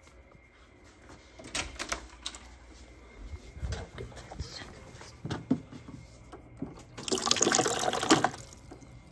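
Water running into a container for just over a second near the end, after a few scattered knocks and clicks.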